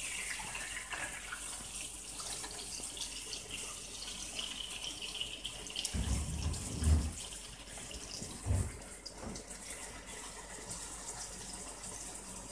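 Chopped tomato sizzling in hot olive oil in a pan, a steady hiss. A few low knocks come about six and eight and a half seconds in.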